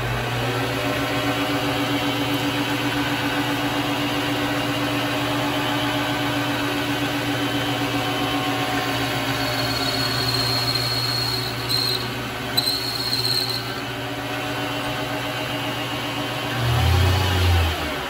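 Vevor MX400 mini lathe running: a steady motor and spindle whine that climbs in pitch as the chuck spins up at the start. A thin high tone from the tool cutting the part comes and goes a little past the middle. Near the end the pitch dips and rises again as it gets louder.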